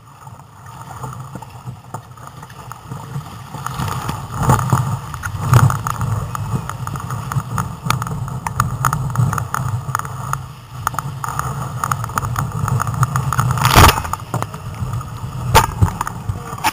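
Breaking surf rushing and splashing around a kayak, getting louder about four seconds in, with sharp slaps of water, the loudest near the end.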